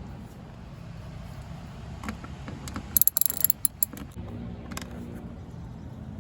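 A hand ratchet clicking in a quick run of sharp clicks, about three seconds in and lasting under a second, as screws are backed out.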